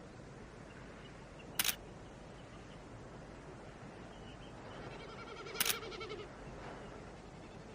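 Camera shutter fired twice, about four seconds apart, each release a quick double click.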